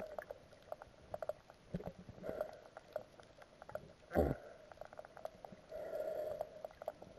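Muffled underwater sound picked up through a camera's waterproof housing: scattered small clicks and crackles, with one louder thump about four seconds in.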